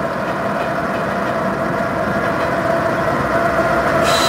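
Diesel engines of Union Pacific freight locomotives running as they pass, a steady heavy drone that grows a little louder. Near the end a high metallic wheel squeal starts.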